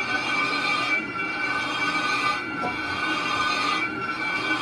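Cast iron truck brake drum being turned on a lathe: the cutting tool squeals steadily against the spinning drum with high ringing tones, dipping briefly about every second and a half.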